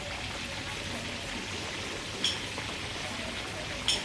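Food sizzling steadily in hot oil in a pan, with two sharp clicks, one about halfway through and one near the end.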